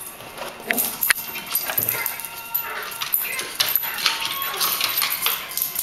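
West Highland white terrier whining and whimpering excitedly, with a few sharp clicks among the whines.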